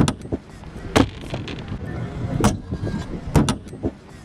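Skateboard rolling, with several sharp clacks and knocks of the board: one right at the start, one about a second in, one midway, and a quick double knock near the end.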